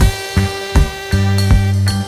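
Background music: an upbeat swing-jazz track with a steady drum beat and held instrumental notes.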